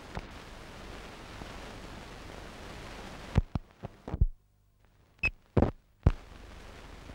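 Steady hiss of an old film soundtrack, then a series of loud clicks and pops between about three and six seconds in, with dead silence between the later ones, before the hiss returns. The clicks and dropout mark a break in the tape transfer.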